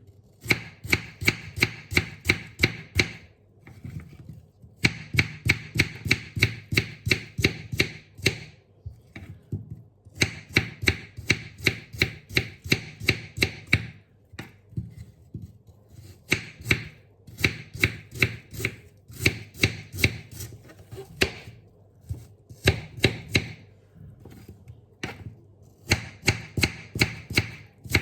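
A knife chopping apples in quick, even strokes of about five a second. The strokes come in runs of a few seconds with short pauses between them.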